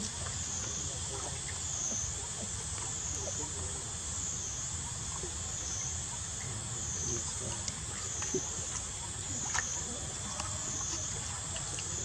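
Steady outdoor ambience at a pool where macaques are swimming: a high insect drone swelling and fading about every one and a half seconds over a low rumble, with scattered faint ticks and small splashes.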